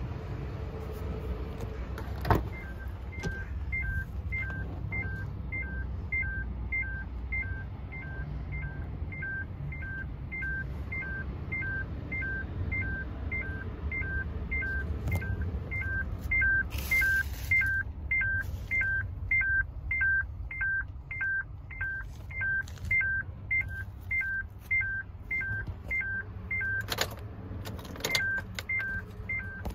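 Truck cab warning chime with the door open: a two-note electronic beep repeating steadily over a low rumble. It starts just after a sharp click, and breaks off briefly near the end around two clunks.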